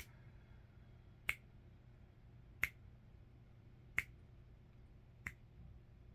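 Sharp single clicks at a slow, even beat, about one every 1.3 seconds, over a faint steady low hum.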